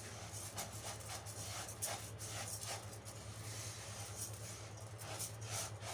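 Faint, irregular scraping and sizzling of orzo (lisan al-asfour) being fried and stirred in ghee in a pan, nearly golden, over a steady low hum.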